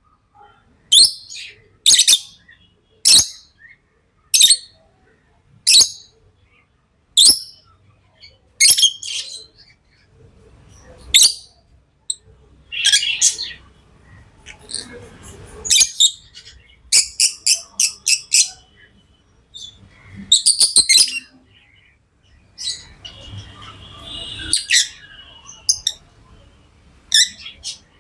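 Pet lovebirds chirping: sharp, high-pitched chirps about once a second, then quick runs of several chirps in a row in the second half.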